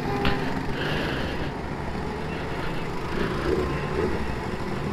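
Motorcycle being ridden in town traffic: steady engine and road noise with other vehicles around, no sharp events.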